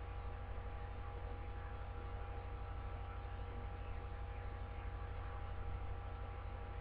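Steady low electrical hum with a few faint steady tones and a light hiss, unchanging throughout; no singing or music can be made out.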